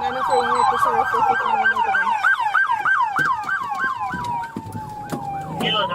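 Police car siren in fast yelp mode, sweeping up and down about four times a second, then shifting into a slow falling wail in the second half and rising again near the end.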